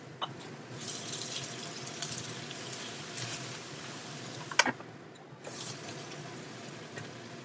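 Giant river prawns and onion sizzling in a frying pan, a steady hiss. There is a small knock just after the start and a louder sharp knock a little past halfway, after which the sizzle briefly drops away.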